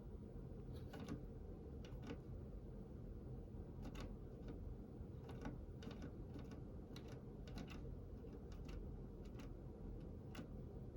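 Faint, irregular short clicks in small clusters over a low, steady hum.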